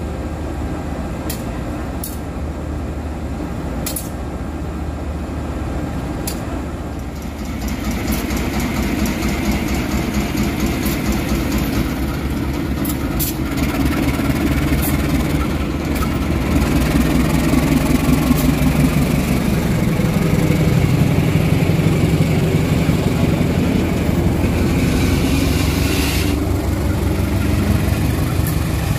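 KAI CC203 diesel-electric locomotive's engine idling, then growing louder as it is throttled up about a quarter of the way in and again around the midpoint, its pitch rising as the train pulls away.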